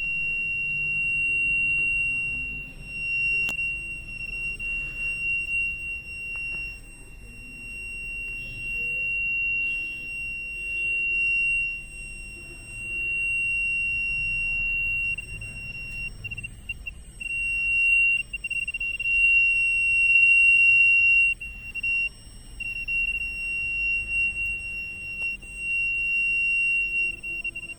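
Acoustic feedback from a microphone and amplifier loop: a steady high-pitched squeal that stays on one pitch while its loudness swells and dips.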